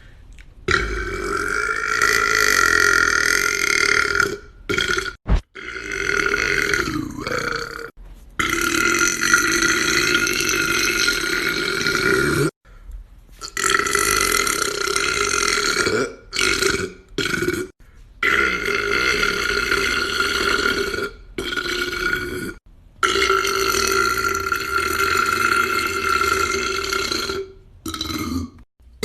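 A series of long, drawn-out burps from different men, each held for several seconds at a fairly steady pitch, one after another with abrupt short breaks between them.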